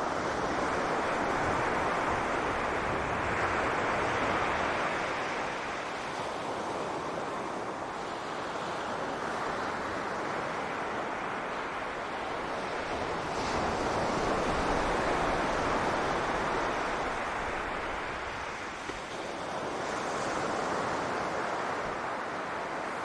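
Ocean waves breaking and washing up a beach, the surf swelling and fading slowly about three times, with some wind on the microphone.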